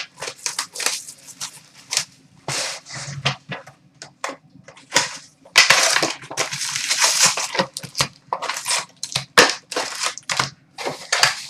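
Packaging of a box of 2011-12 SP Authentic hockey cards being torn open: a run of crinkling, crackling plastic and card, with a longer stretch of tearing around the middle.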